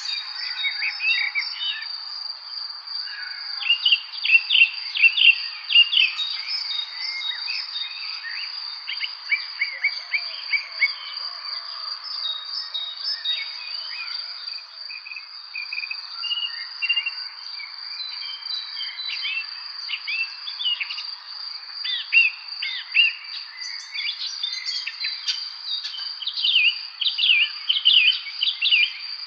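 Springtime birds chirping and singing in a busy evening chorus of quick, overlapping notes, with louder bursts of chirping several times, over a steady high-pitched whine.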